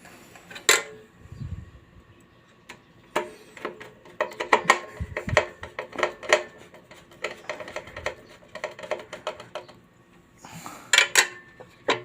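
Irregular clicks, taps and clatter of hard parts being handled on a hospital heat sealer during reassembly, with a few dull thuds.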